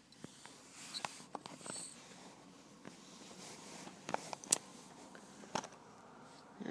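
Money clamp wallet being handled with one hand: soft rustling with scattered light clicks and taps, the sharpest about four and a half seconds in.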